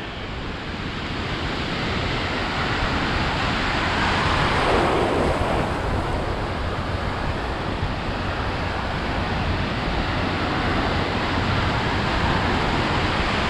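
Atlantic surf breaking and washing around a wader, a steady rush of water that swells about four seconds in, with wind buffeting the microphone.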